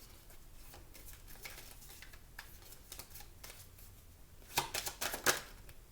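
Tarot cards being handled and shuffled: faint rustling with light clicks, then a quick cluster of sharper clicks about four and a half seconds in.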